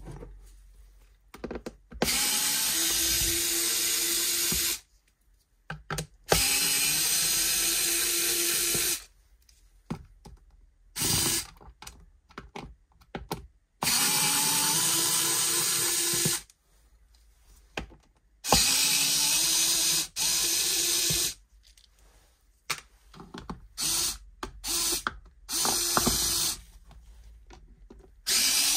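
Pen-style electric screwdriver backing out the screws of a Bluetooth speaker's housing. It runs with a steady motor whine in spells of two to three seconds, several times over, with a few short bursts and light clicks between them.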